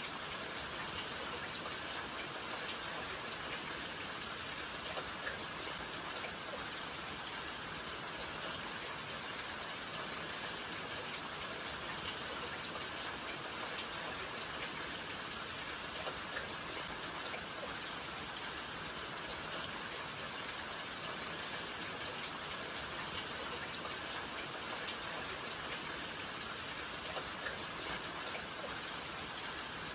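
Steady rain falling, a dense even hiss with scattered individual drops ticking on surfaces.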